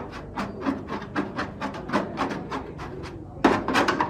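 Rapid, even strokes of a hand tool working on metal parts of a motor, about three to four a second, louder near the end.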